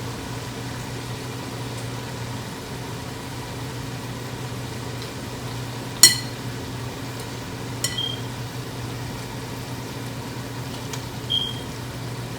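Metal cooking utensils clinking against a cooking pot while chicken is added to a fried masala: a few sharp, briefly ringing clinks, the loudest about six seconds in, over a steady low hum.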